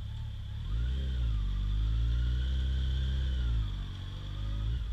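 Motorcycle engine pulling away under throttle: the revs rise about a second in, hold, fall away about three and a half seconds in, and pick up again near the end.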